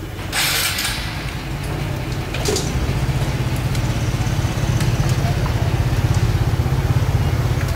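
Small engine idling steadily, getting louder about two seconds in, with a short hiss about half a second in.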